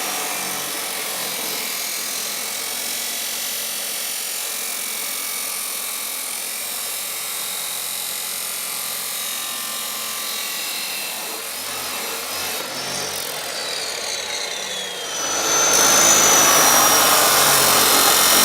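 Chop saw running and cutting through a steel baler bar in one long steady cut. It grows noticeably louder and harsher about fifteen seconds in.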